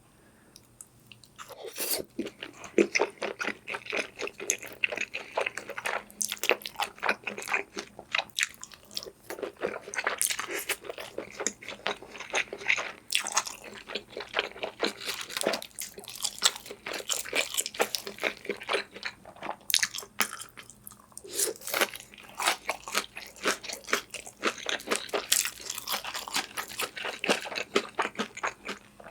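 A person eating close to the microphone: chewing with crisp crunches and wet clicks, in bouts with short pauses between mouthfuls.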